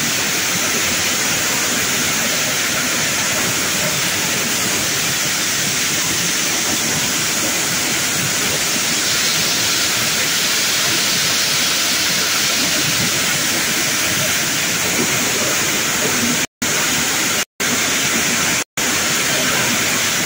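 Box 150 motorized corn sheller running steadily, with a dense rushing hiss of shelled maize kernels pouring and rattling out of the machine. The sound is broken by three very short silences near the end.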